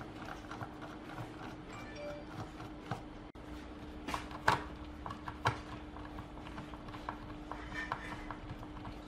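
Small clicks and taps of a precision screwdriver turning screws out of a speaker's particleboard back panel, with one louder tap about four and a half seconds in, over a faint steady hum.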